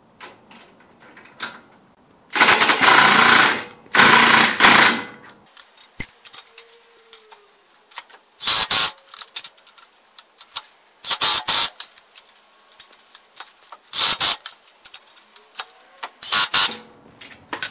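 Impact wrench running lug nuts onto a car wheel in bursts: two longer runs of about a second each, then four short bursts a few seconds apart.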